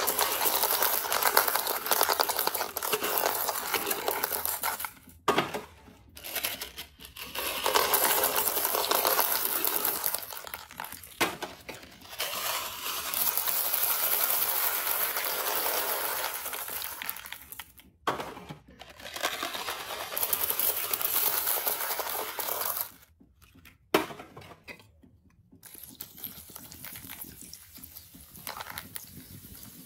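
Small hard candies such as Runts and Red Hots poured out of cardboard boxes, rattling onto a heap of candy and plastic balls in a toilet bowl, in several pours with short pauses between. In the last few seconds a quieter pour of soda.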